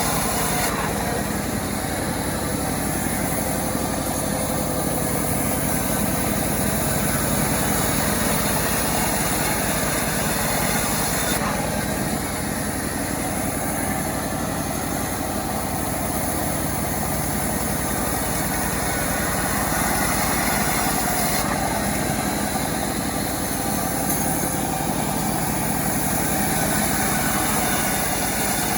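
Self-assembled chainsaw engine running at a steady speed, with no clear revving.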